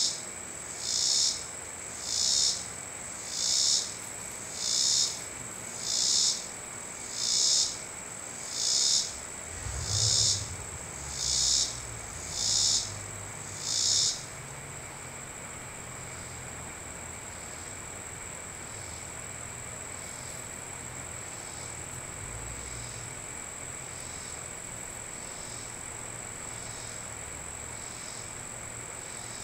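Insects calling: a loud pulsed call repeating about once a second, which stops about halfway through and leaves only fainter repeats, over a steady high-pitched trill.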